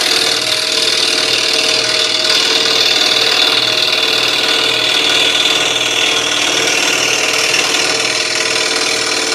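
Scroll saw running, its No. 3 Pegas reverse-tooth blade cutting through a wooden board. A steady motor hum lies under the hiss of the cut.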